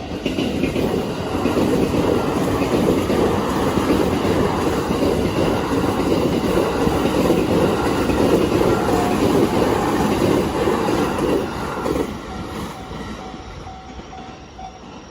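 Train passing through a level crossing: loud wheel-on-rail noise that holds for about twelve seconds, then dies away. As it fades, the crossing's electronic warning bell can be heard again as a quick repeating ding.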